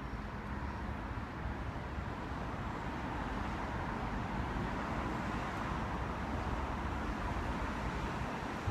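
Steady low rumble of vehicle noise, with a faint steady hum on top, growing slightly louder partway through.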